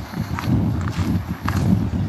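Footsteps of someone walking, about two steps a second, heard as short clicks over a dense, uneven low rumble.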